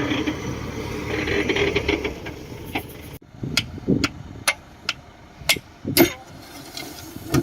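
Shantui DH17C2 bulldozer running with metallic clanking for about three seconds, then the sound drops off suddenly to a quieter background with scattered sharp knocks and clicks.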